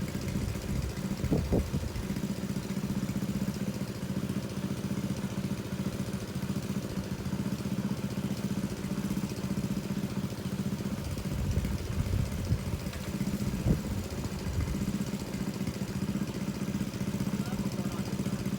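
Small engine running steadily at a constant speed, most likely the engine of a pump draining a fish pond. A few short louder knocks come about a second in and again around the middle.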